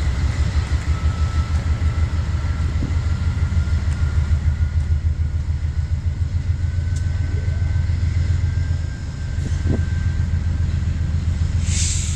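GE AC44i diesel-electric locomotive's engine running under power with a deep, pulsing rumble and a faint high whine that rises slowly. The rumble dips briefly about three-quarters of the way through, and a short hiss comes near the end.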